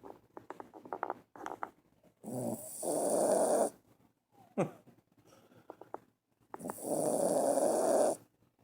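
Sleeping dog snoring loudly: two long snores a few seconds apart, with a brief falling whistle between them.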